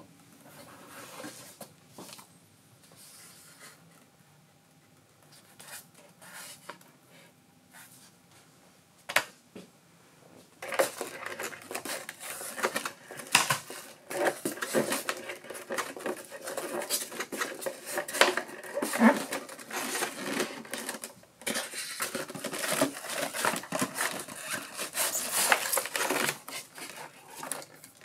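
Unpacking handling noises: a polystyrene foam packaging insert, cardboard box and plastic parts being moved, rubbed and knocked. A few small clicks at first, then from about ten seconds in a busy run of scraping, rustling and clattering.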